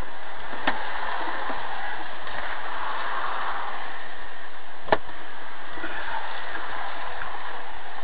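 Steady road and tyre noise heard inside a moving vehicle's cab on a wet road, a constant hiss, with a sharp click about a second in and a louder knock about five seconds in.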